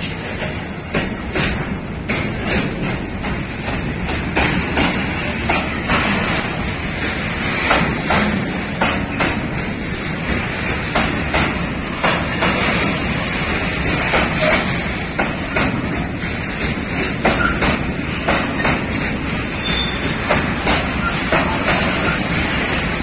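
Tank wagons of a freight train rolling past at close range: a steady rumble of wheels on rail, broken by frequent, uneven metallic clicks and knocks from the wheels and running gear.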